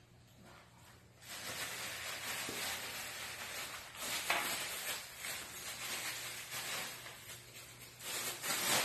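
Rustling and scratching as puppies scramble over a cloth sheet. It is quiet for about the first second, then a steady rough hiss of fabric rustle runs on, louder about four seconds in and again near the end.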